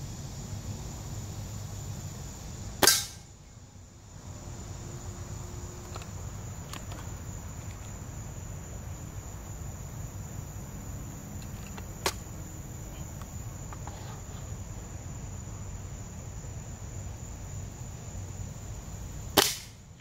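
Two shots from an Umarex Surge break-barrel spring-piston air rifle, each a single sharp crack, about 3 s in and again near the end, with a short click and a few faint ticks in between as the rifle is handled for the next shot.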